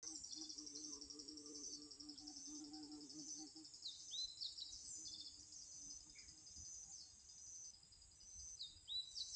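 Faint birdsong outdoors: continuous high chirping and trilling, with a few sharper rising chirps about four seconds in and again near the end. A low hum sits underneath for the first few seconds.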